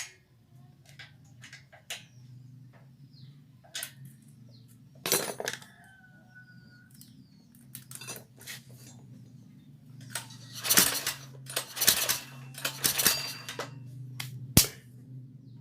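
Metal tools and small engine parts clicking, clinking and scraping as a generator engine is worked on by hand, with the busiest rattling about ten seconds in and a sharp click near the end.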